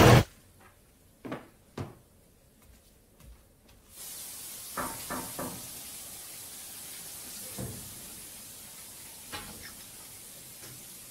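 Soft knocks and thumps in a quiet room. About four seconds in, a steady hiss begins, with a quick run of three light knocks and a few more single taps after it.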